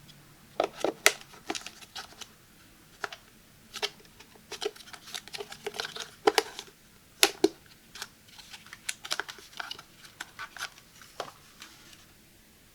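Hands handling a BLACK+DECKER Dustbuster handheld vacuum and its packaging, making irregular sharp clicks and taps with short stretches of crinkling. The vacuum's motor is not running.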